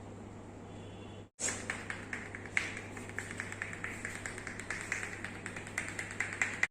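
Rapid, uneven tapping, several sharp taps a second, starting suddenly about a second in after a brief cut and stopping abruptly at the end.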